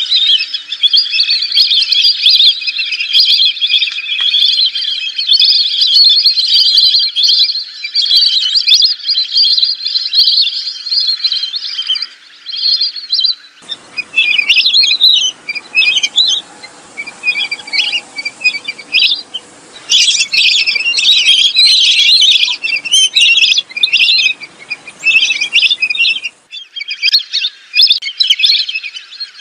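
A flock of lesser whistling ducks giving shrill whistled calls in a dense, overlapping chorus. About 13 seconds in, the recording switches to a take with a hiss beneath it and the calls coming in separate bursts, and the dense chorus returns near the end.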